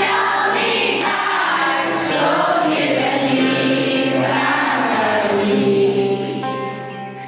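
A group of voices singing together in chorus over a held low accompaniment note. The singing ends about six seconds in, leaving steady held instrumental notes.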